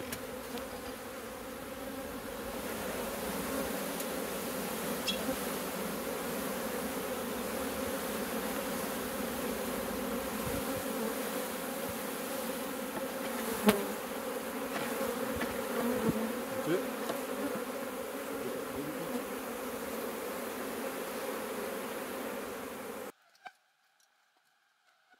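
Dense, steady buzzing of a honeybee swarm as the bees are tipped from a bucket into a hive box, with a single sharp knock about two thirds of the way in. The buzzing cuts off abruptly near the end.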